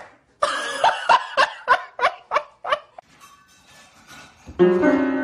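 A person laughing hard in a quick run of about eight 'ha' bursts. Near the end, a cluster of piano notes sounds at once and rings on as a cat steps down onto the keys of an upright piano.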